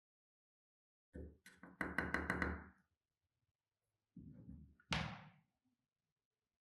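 A quick run of about half a dozen sharp knocks, then a duller scraping-like patch and one more sharp knock with a short ring, typical of hand work on a part in a workshop restoration.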